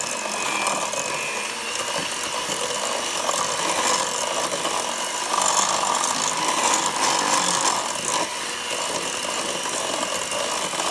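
Electric hand mixer running steadily, beating an egg and vanilla into creamed butter and sugar. Its motor whine rises slightly in pitch about two seconds in.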